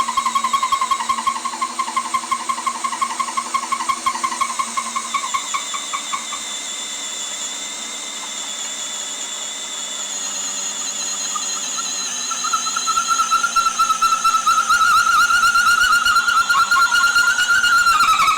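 Cordless DeWalt hammer drill in low gear (speed 1) boring a large hole through lumber, its motor and gearbox whining under heavy load. For the first few seconds the whine pulses a few times a second as the bit bites. It then runs steadily, and about twelve seconds in it rises in pitch and gets louder as the load eases.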